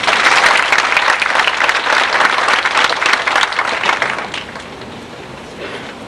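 Audience applause in a hall: many hands clapping, loud for about four seconds, then dying away.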